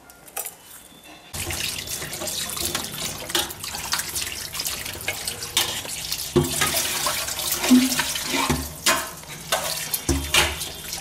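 Tap water running into a steel bowl of raw chicken pieces in a sink, splashing as the pieces are washed and rubbed by hand. It starts suddenly about a second in.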